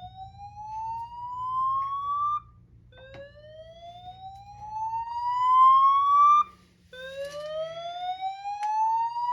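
Fire alarm voice-evacuation speaker sounding a slow-whoop evacuation tone. Each whoop rises steadily in pitch for about three and a half seconds and cuts off sharply; there are three in a row with short gaps between them.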